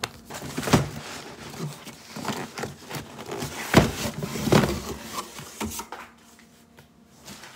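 A cardboard carton being handled and shifted on a stone countertop: rustling and scraping cardboard with a few sharp knocks, the loudest a little past the middle, then quieter near the end.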